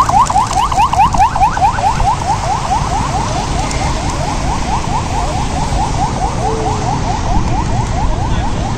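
Electronic alarm sounding a fast run of short rising whoops, about six a second, that keeps repeating and grows a little fainter after the first second or so, over a low traffic-like rumble.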